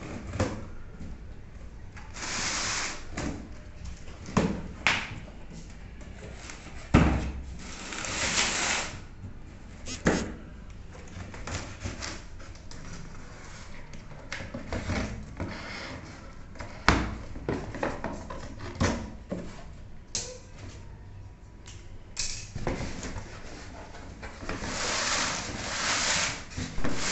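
Cardboard box being opened by hand: packing tape slit and peeled off with rasping tearing noises and the flaps pulled open, with scattered knocks and rustles from handling the box and its styrofoam packing.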